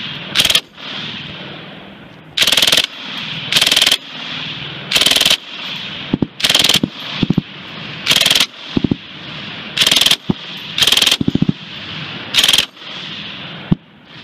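Canadian C9 light machine gun (5.56 mm) firing from its bipod in about nine short bursts of automatic fire, one every second or so, each followed by a rolling echo. A single shot comes near the end.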